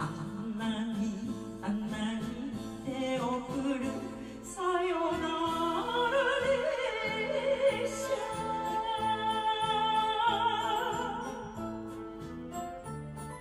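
Woman singing an enka song into a microphone with wide vibrato over a karaoke backing track with a steady bass beat. Her voice stops near the end, leaving the backing track.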